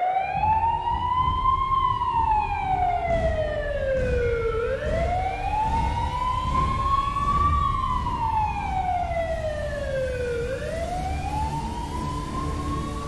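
Ambulance siren wailing, its pitch rising and then falling slowly in cycles of about six seconds, over a low rumble.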